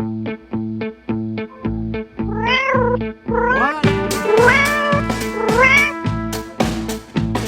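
Background music with a steady beat, over which a cat meows several times from about two and a half seconds in, each meow rising and then falling in pitch.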